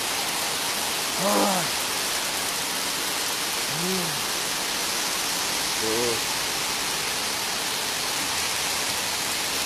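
Steady rain falling, an even dense hiss. Three short rise-and-fall vocal sounds from a person come about a second, four seconds and six seconds in.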